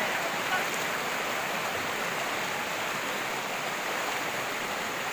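Shallow river rushing steadily over rocks and stones in a riffle.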